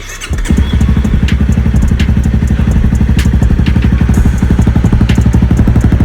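Honda CRF250 Rally's 250 cc single-cylinder engine running at a steady idle, loud and close, with an even pulsing beat. It comes in about half a second in.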